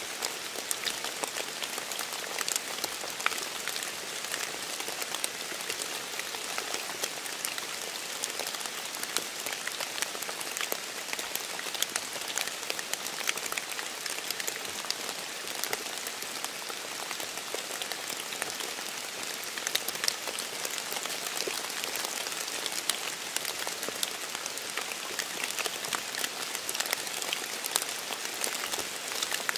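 Steady rain falling: an even hiss with many small, sharp drop ticks scattered through it.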